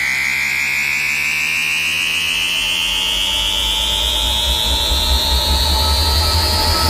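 Synthesized siren-like riser in a DJ sound-check mix: a single tone climbing slowly and steadily in pitch, with a deep bass rumble coming in about halfway through.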